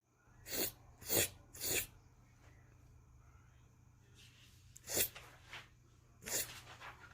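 A person making wet mouth licking sounds, three quick ones about half a second apart, then two more a few seconds later, over a faint steady hum.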